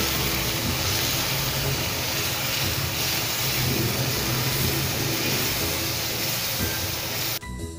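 Tomato paste frying in hot oil with onion and ginger-garlic paste, a steady loud sizzle as it is stirred in a frying pan. The sizzle cuts off suddenly near the end and background music takes over.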